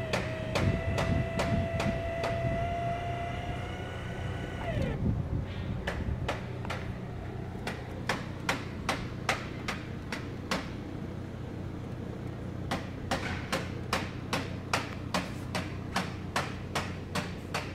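Electric motor whine from a MiR mobile robot's shelf anchoring device, rising slightly in pitch and stopping after about five seconds. After it come sharp, regular clicks, about two to three a second, with a short pause in the middle.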